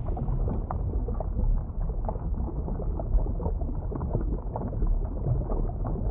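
Muffled underwater sound effect: a steady low rumble with many small scattered bubble pops.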